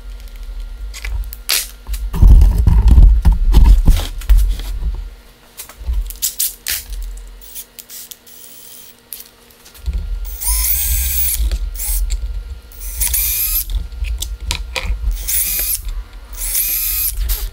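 Cordless drill pre-drilling pilot holes into a plywood board: four short runs, each motor whine rising in pitch as it spins up, in the second half. Before that, knocks and clatter as the metal bracket and motor are handled and set in place.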